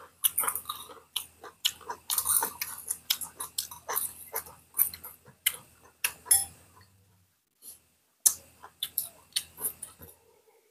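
Close-miked chewing and lip-smacking of people eating boiled pork and rice with their hands: many irregular short, wet smacks and clicks, with a brief lull about seven seconds in.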